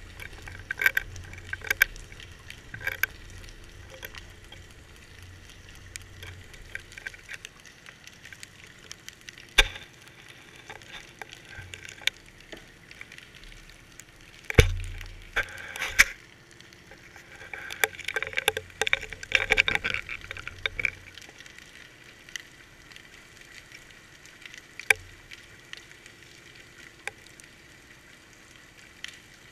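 Underwater sound picked up through a GoPro's waterproof housing on a deep-water fishing rig: scattered sharp clicks and crackles, a heavy knock about halfway through as the rig comes down near the rocky bottom, and a denser patch of clattering clicks a few seconds later.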